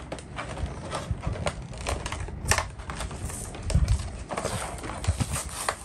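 Plastic and foil toy packaging crinkling and tearing as small toy packets are opened by hand: a dense run of irregular crackles and clicks, with a few low thumps.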